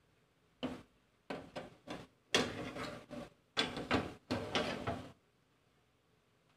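Handling noises: an irregular run of short scrapes and rustles from about half a second to five seconds in, with quiet between them.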